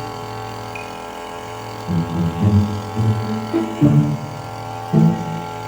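Background music: a steady drone with short, low plucked or drummed notes coming in and out in an uneven rhythm.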